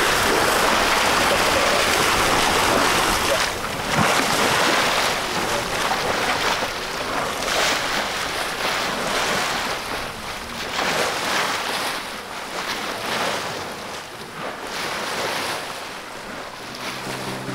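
Water rushing along the hull of an Island Packet 439 sailboat under sail, with wind buffeting the microphone. The rush is loudest for the first few seconds, then swells and eases more softly.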